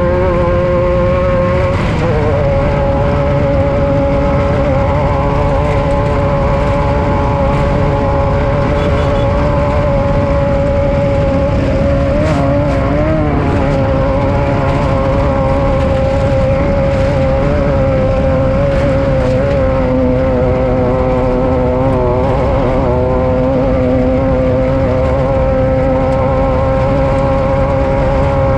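Desert race vehicle's engine running hard at steady high revs, its pitch dipping and recovering briefly about two seconds in and again around thirteen seconds, over a constant low rumble.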